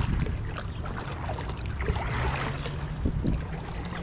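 Double-bladed kayak paddle strokes: the blades dipping into the water and lifting out with splashes and drips, over a steady low wind rumble on the microphone.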